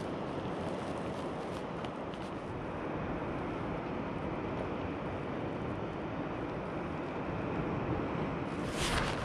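Steady wind noise outdoors, with a few faint clicks early on and a brief louder rustle near the end.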